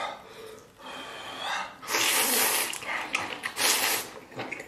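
Close slurping as a mouthful of noodles is sucked in from a bowl: several loud, hissy sucks of air, the loudest about two seconds in.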